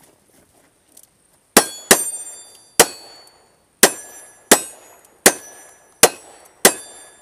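Gunshots in a cowboy action shooting stage: eight shots, roughly a second apart from about a second and a half in, each followed by a ringing tail like a struck steel target.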